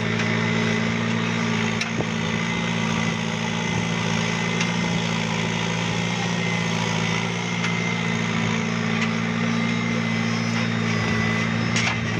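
John Deere 5085M tractor's four-cylinder turbo diesel engine running at a steady, unchanging pitch under load as it pulls a mounted plough through the soil.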